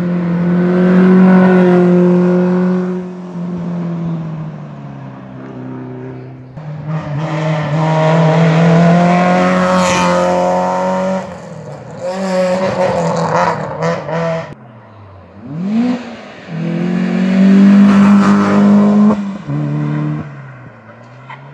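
Hillclimb rally cars racing past one after another at full throttle, one of them a Peugeot 106. The engines rev up and drop back with each gear change, and each pass gets loud and then fades.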